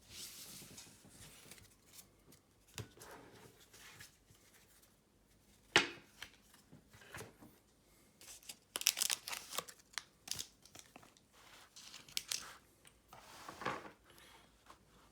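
Trading cards and a foil booster-pack wrapper being handled: intermittent crinkling and rustling, with one sharp tap about six seconds in.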